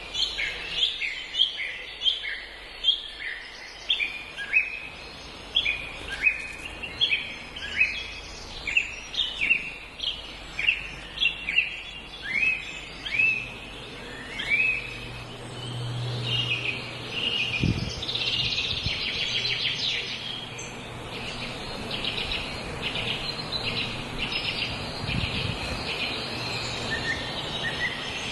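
Birds chirping: a run of sharp, downslurred chirps about two a second, giving way about halfway through to a denser, continuous twittering chatter.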